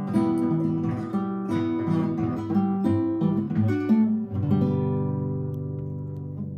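Acoustic guitar music: picked notes, then a final chord struck about four seconds in that rings on and slowly fades.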